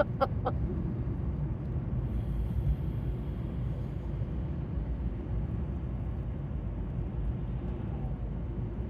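Steady low rumble of a car.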